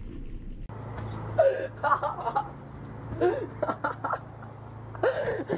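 A girl's high-pitched squeals and whimpering cries, starting about a second in and rising and falling in pitch, as a bowl of water is dumped over her head, with a sudden splash as her cries begin.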